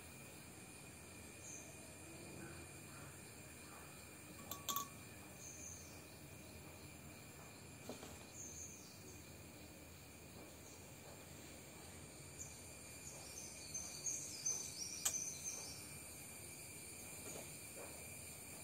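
Faint outdoor ambience: a steady high insect drone with scattered high chirps that cluster about three quarters of the way through. A couple of sharp clicks stand out, one about a quarter of the way in and a louder one about four fifths of the way in.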